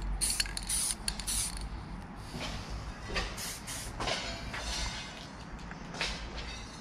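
Aerosol spray-paint can hissing in several short bursts, three in quick succession at the start and more about three and four seconds in, with a low wind rumble on the microphone.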